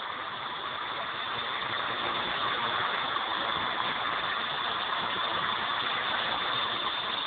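Walkera V200D02 flybarless electric RC helicopter in flight overhead: a steady high-pitched motor whine over the rushing of the rotor blades, getting a little louder over the first few seconds.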